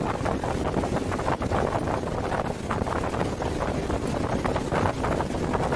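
Steady, loud noise of aircraft engines and rushing air inside a military transport plane's cabin, with wind buffeting the microphone.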